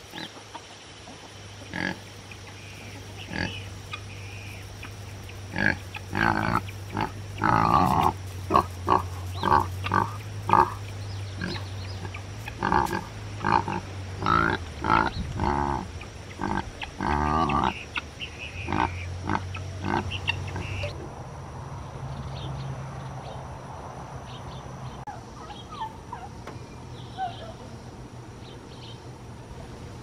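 Chickens and guinea fowl calling: a busy run of loud, short, repeated calls through the middle, thinning out and growing fainter in the last third.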